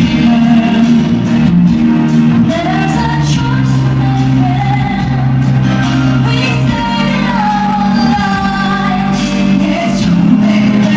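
A man and a woman singing a duet into microphones over amplified backing music, with the echo of a large hall.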